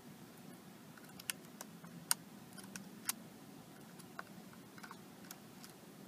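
Faint, irregular small clicks and taps of metal tweezers working at the metal switch bracket and flex cable inside an iPad 2.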